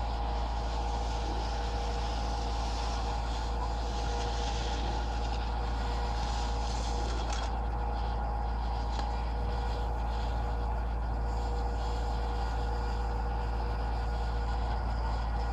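Diesel drive engine of a Heuss short-bar T-bar ski lift running steadily, a low rumble with a steady whine.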